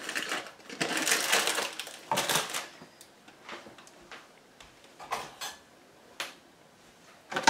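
A cardboard packet of stuffing mix being torn open and its inner bag rustled, a crackling rustle for about two seconds, then a few scattered light clicks and knocks.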